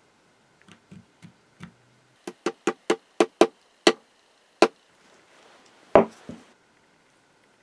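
Metal tapping on a hand drill's steel parts as it is reassembled. A few soft knocks come first, then about nine sharp, ringing metal taps in two seconds, then one heavier thump with a smaller one just after.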